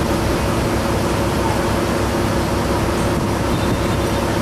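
Steady drone of a vehicle ferry's engine: a continuous low rumble with a hum running through it.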